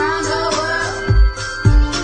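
Pop song: a sung vocal melody over sustained synth tones, with two deep bass hits about a second and one and a half seconds in.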